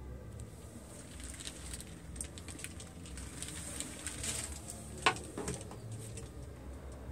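Low steady background hum with scattered faint ticks and light handling clicks from a handheld phone being moved around. There is one sharper click about five seconds in.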